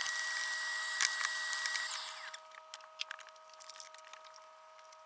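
Vacuum cleaner switched on briefly at the hose nozzle: a loud rush of air with a high motor whine, which stops just under two seconds in as the whine winds down. Light clicks of handling follow.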